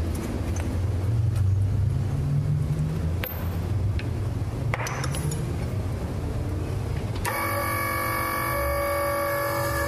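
A steady low machine rumble with a few light metal clinks as steel parts are set onto a gear stack on a press bed. About seven seconds in, background music takes over.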